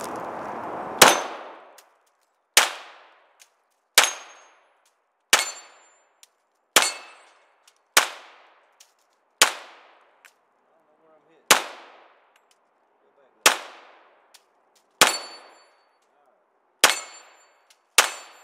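Glock 21 .45 ACP semi-automatic pistol fired twelve times at a slow, steady pace, about one shot every one and a half seconds, each shot loud and sharp with a short ringing decay.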